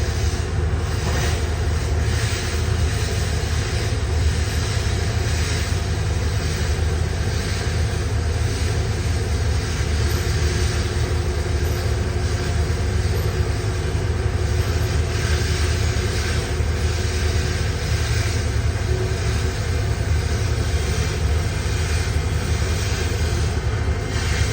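Welding arc running continuously on 316 stainless steel: a steady, noisy hiss over a strong low hum.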